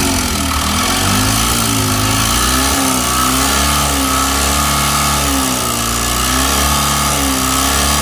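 Suzuki Super Carry engine idling, its speed wavering slightly up and down.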